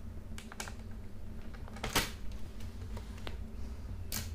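Plastic clicks and snaps as the bottom cover of a Dell Latitude 7490 laptop is pried off the chassis, its clips letting go one after another. The sharpest snap comes about two seconds in.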